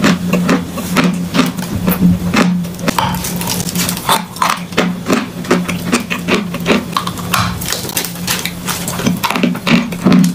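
Close-up chewing of a lump of edible chalk: irregular sharp crunches, several a second, with a steady low hum underneath.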